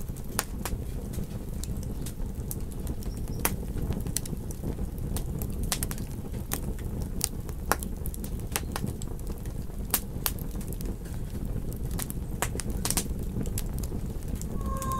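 Campfire crackling: irregular sharp pops and snaps from burning wood over a steady low rumble of the flames.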